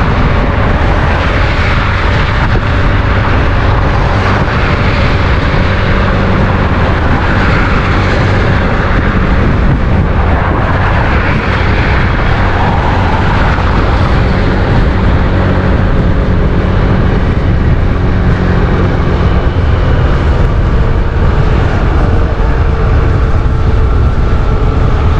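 Steady rush of wind on the microphone of a scooter moving at road speed, over the steady drone of its engine and tyres.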